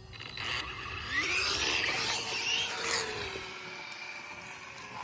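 Losi Promoto RC motorcycles' electric motors and drivetrains whining, the pitch rising and falling as the bikes accelerate and slow. The sound is loudest about one to three seconds in and fades after that.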